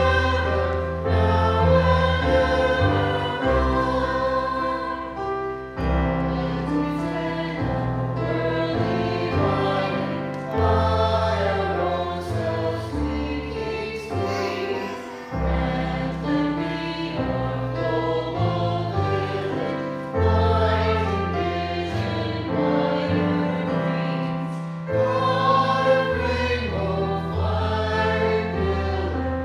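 Small mixed choir of men's and women's voices singing together, over low sustained notes that change every couple of seconds.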